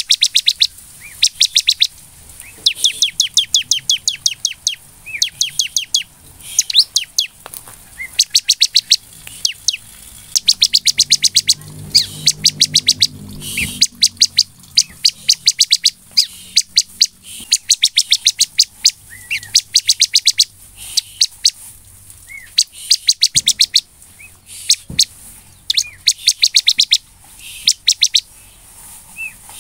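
Bar-winged prinia (ciblek) in full song: rapid runs of sharp, high chirps, many a second, delivered in bursts of one to two seconds with short pauses between them.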